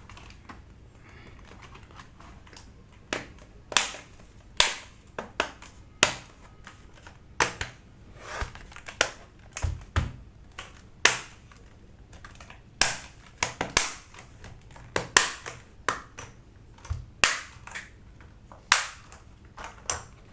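Sharp, irregular plastic clicks and snaps, a few to each second, as a Thunderobot K98 mechanical keyboard's top plate and parts are pressed back together during reassembly.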